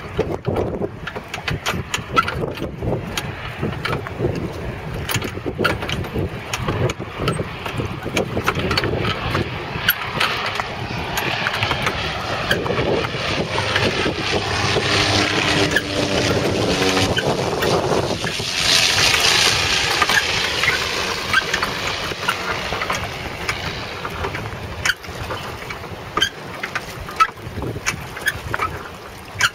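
Cessna Caravan floatplane's turboprop engine and propeller passing low overhead on its landing approach, growing louder to a peak with a high whine about two-thirds of the way through, dropping in pitch as it goes by and then easing off. Wind buffets the microphone throughout, with scattered knocks.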